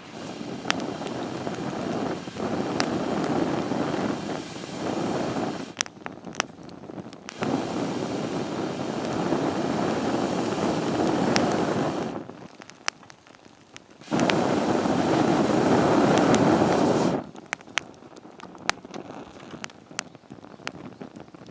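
Wood campfire crackling with sharp pops, broken by three loud stretches of rushing noise a few seconds long that start and stop abruptly.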